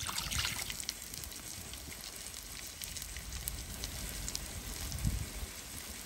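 Hush-puppy-battered fish pieces (whiting and trout) sizzling and crackling in shallow hot oil in a stainless steel frying pan as more pieces are laid in.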